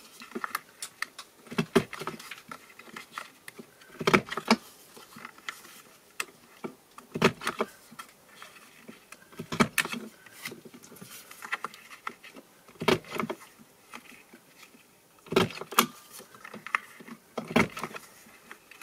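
Desktop corner-rounder punch clunking shut on the corners of card stock, about ten sharp clicks at uneven intervals, some in quick pairs, with card sliding and rustling as the pieces are turned between punches.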